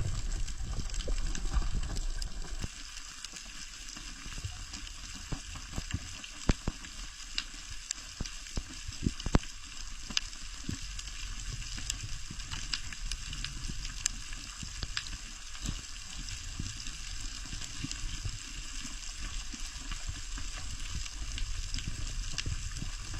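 Underwater ambience: a steady crackling hiss with scattered sharp clicks, and a low rumble that fades out a couple of seconds in.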